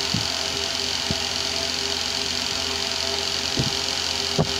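Steady mechanical hum of a room fan running, with a few faint clicks and taps.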